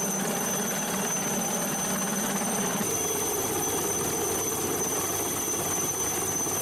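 HAL Chetak (Alouette III) helicopter running on the ground with its rotor turning: a steady high turbine whine over a rushing noise. The lower hum changes pitch about three seconds in.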